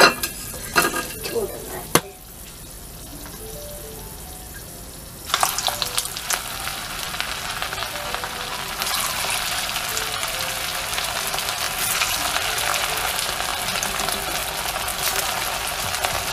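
Hot sunflower oil in a frying pan on high flame. A few sharp clicks come in the first two seconds. About five seconds in, a rava-and-potato snack stick goes into the oil, which breaks into a loud, steady deep-frying sizzle that swells further a few seconds later.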